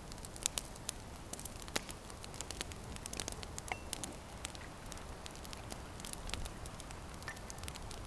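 Campfire crackling, with irregular sharp pops scattered through it.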